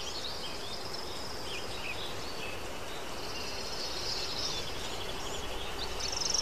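Outdoor ambience of small birds chirping over a steady hiss, with a fast trill about three seconds in and another near the end.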